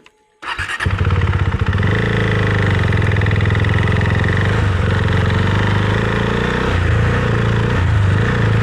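Husqvarna Svartpilen 401 single-cylinder engine coming in abruptly about half a second in, then running steadily at a fairly even pitch.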